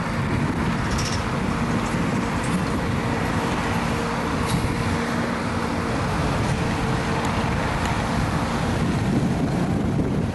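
Steady engine rumble mixed with outdoor noise, with a faint hum held for several seconds.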